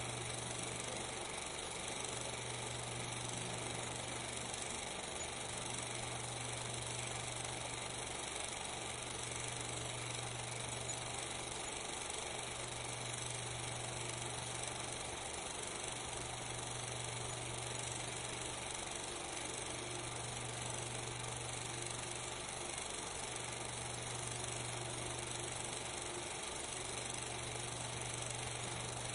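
Steady hiss with a low hum that dips briefly about every three and a half seconds: the background noise of a silent 16 mm film transfer, with no sound from the scene itself.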